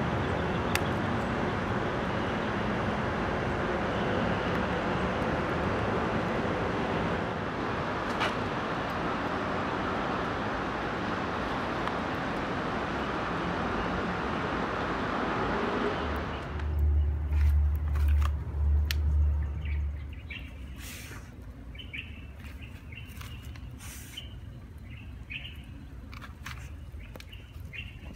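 Steady rushing noise of a small homemade wood-gas stove burning hard under a steel mug of water. After a cut, a few heavy low thumps, then small birds chirping.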